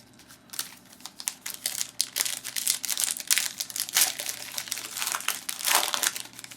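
Plastic wrapper of a trading-card pack being crinkled and torn open: a dense run of irregular crackles starting about half a second in.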